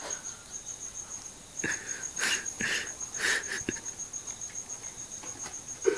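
A drunk man snoring in short, wheezy, hissing breaths, several in quick succession about two to three seconds in, over a steady, rapidly pulsing high chirp.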